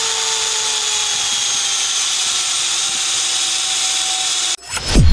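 Electric drill running steadily, its motor whine with a hiss sinking slowly in pitch, then cutting off abruptly near the end. Loud electronic music with a falling sweep comes in right after.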